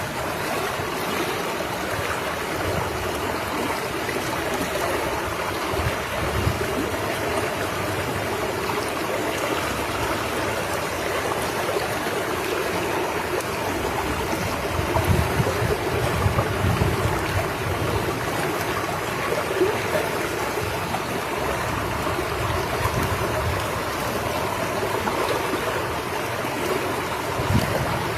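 Steady rush of moving water, with a few low gusts of wind buffeting the microphone, mostly about halfway through and again near the end.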